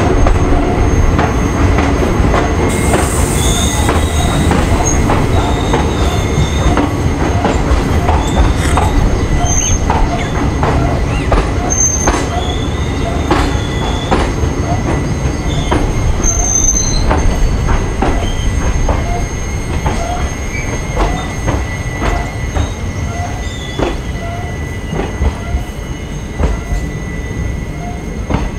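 Passenger train coaches rolling slowly out of a station, heard from the coach doorway. A steady low rumble runs under irregular clicks and knocks from the wheels and track, with many short, high-pitched wheel squeals.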